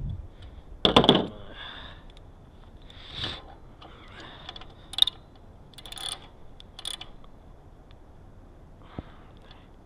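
Metal tool clicks and clatter as a bicycle's front through axle is snugged down with a T-handle hex wrench: a loud clattering knock about a second in, then scattered lighter clicks every second or two. A faint steady high-pitched tone runs underneath.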